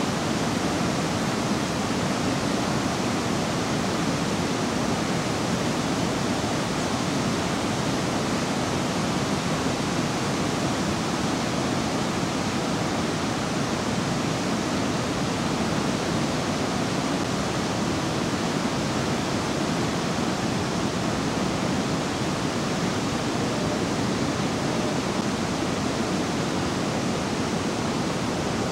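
A steady, even rushing noise that runs without a break.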